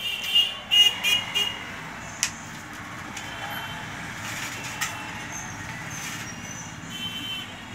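A few sharp knocks and clicks from handling the wooden sewing-machine table top and its leather belt, over a steady background hum. In the first second or so come several short high-pitched beeps.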